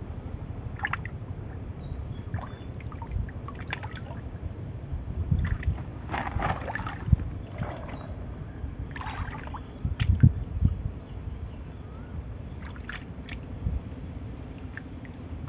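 Shallow muddy canal water sloshing and squelching in irregular bursts as people wade and grope through the mud by hand for fish, over a low steady rumble.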